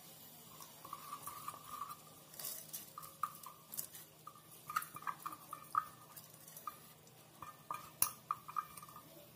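Faint, irregular light clinks and pings from a cooking pot and its steel ladle, with a sharper click about eight seconds in.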